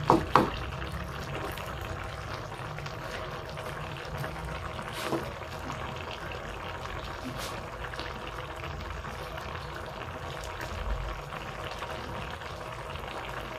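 A coconut-milk vegetable stew simmering and bubbling steadily in a wok. Sharp knocks of a wooden spatula against the pan come twice right at the start and once about five seconds in.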